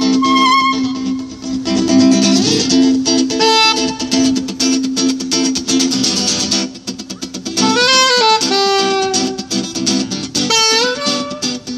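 Live acoustic band music: an acoustic guitar strumming under a melody of held notes that slide between pitches, one long note held for the first half, then a moving line.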